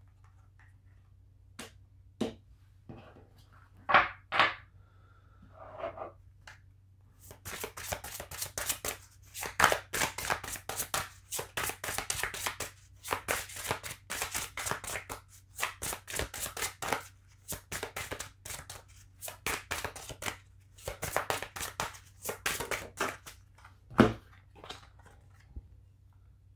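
A deck of oracle cards being shuffled by hand: a long run of rapid card flicks and slaps, after a few separate taps of cards handled on a wooden table, and one sharp knock near the end. A faint low hum runs underneath.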